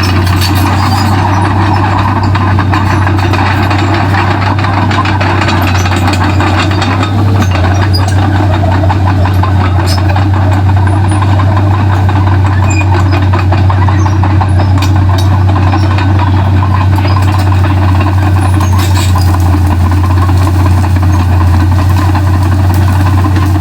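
Komatsu D31P bulldozer's diesel engine running steadily with a loud low drone, shifting slightly about seven seconds in.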